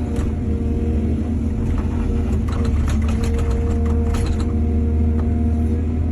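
Heavy diesel engine of an excavator running steadily. A run of clattering and rattling comes from about two to four and a half seconds in.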